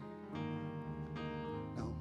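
Keyboard playing soft, held chords.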